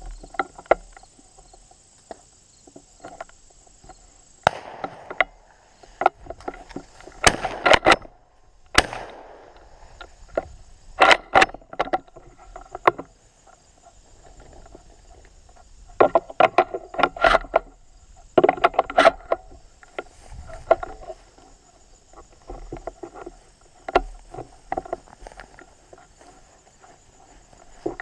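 A steady high insect buzz, with irregular clusters of knocks and rustles over it.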